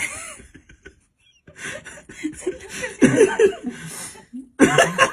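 People laughing and chuckling in two spells, the second starting about four and a half seconds in.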